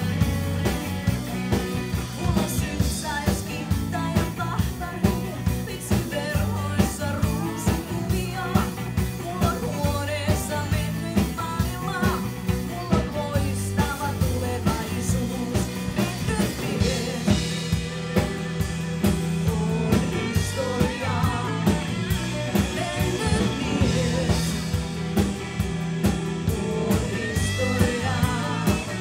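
Rock band playing, with a drum kit keeping a steady beat under the other instruments.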